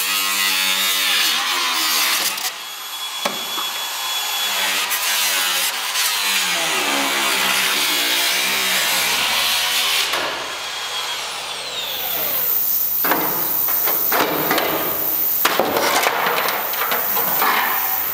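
Electric power tool working on the sheet steel of a truck cab. Its motor note rises and falls as it takes load, and a thin, very high steady whine sets in about twelve seconds in.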